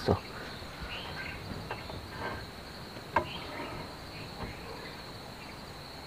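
A few light metallic clicks and knocks as a disc brake caliper is handled and fitted over new brake pads, the sharpest one about three seconds in. Underneath is a steady high-pitched insect chirring.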